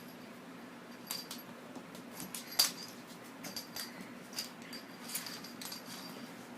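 Light metallic jingling: about a dozen irregular small clicks, each with a short high ring, the loudest about two and a half seconds in, over a steady low hum.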